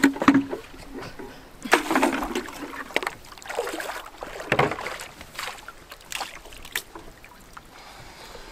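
Plastic bucket on a rope dipped over a boat's side into seawater, splashing and sloshing irregularly as it fills, with the biggest splash about halfway through.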